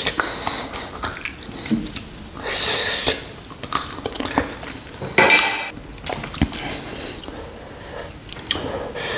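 Close-miked eating of spicy mutton nalli fry: biting and chewing meat off the shank bones, with a few loud wet mouth sounds and small clicks, the loudest about five seconds in.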